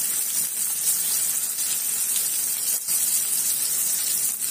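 Two rava-coated stuffed pomfrets sizzling steadily in hot oil in an iron pan, fried over a low flame.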